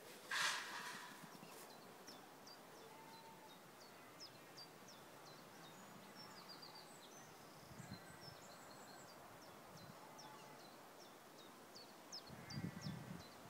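Quiet paddock ambience with small birds chirping again and again, short high down-slurred notes. A brief breathy burst just after the start is the loudest sound, and a few low thumps come near the end.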